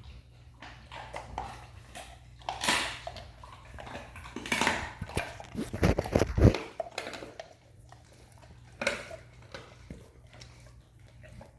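Dogs eating treats: crunching, clicks and knocks, loudest in the middle, over a steady low hum.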